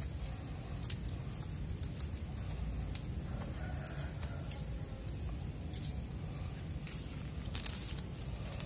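Light clicks and crinkles of clear plastic grafting bags and tape being handled, over a steady low rumble and a thin, high, steady tone.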